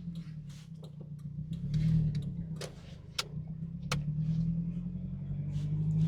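Jeep Wrangler TJ's engine running under load, swelling about two seconds in and again from about four seconds on. A few sharp clicks come through near the middle.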